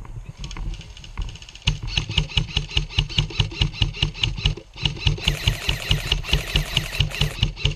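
Airsoft electric rifle firing on full auto: a rapid, even stream of shots with the gearbox whirring, in two long bursts with a short break a little over halfway through.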